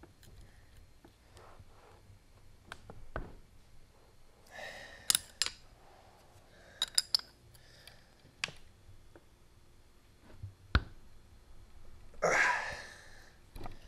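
Scattered sharp metallic clicks and clinks of a wrench on the tight 12 mm cylinder head nuts of a two-stroke Honda CR125 engine. Two short breathy rushes come in, one near the middle and one near the end.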